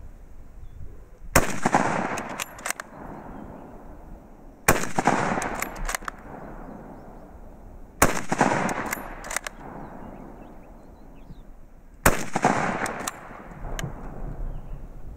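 Four shots from a Mauser K98k bolt-action rifle in 8mm Mauser, spaced about three to four seconds apart. Each crack is followed by a rolling echo, and a few short, sharp clicks fall between the shots.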